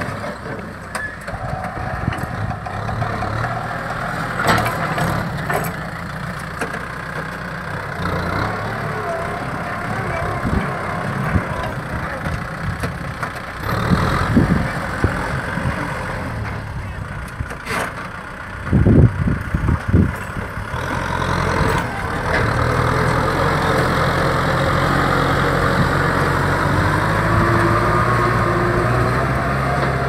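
Kubota M6040SU tractor's diesel engine running steadily while pulling a disc plough through dry soil, with scattered knocks. The loudest is a cluster of knocks about two-thirds of the way through.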